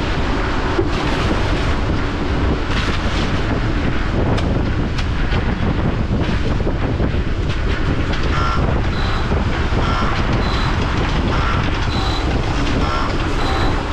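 A heavy vehicle or machine runs with a loud, steady rumble. About eight seconds in, a short high beep starts repeating roughly once a second.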